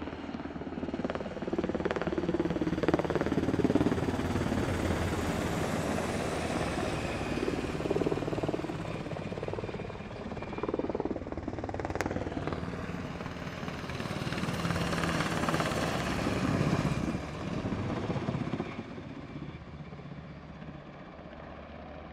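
US Navy helicopter flying past overhead, its rotor and engine noise swelling and easing as it passes, then growing fainter near the end.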